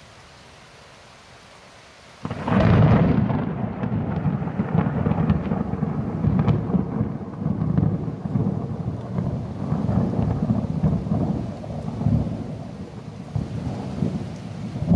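Thunder: a sudden loud crash about two seconds in, then a long, deep rumble that rolls on, swelling and fading, for the rest of the time. A steady hiss of rain sits underneath.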